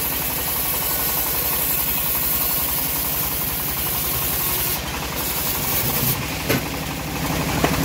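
Engine-driven homemade bandsaw mill running steadily with a fast, even low throb while a teak beam is fed through the blade. The level dips slightly about five seconds in, and two sharp knocks come near the end.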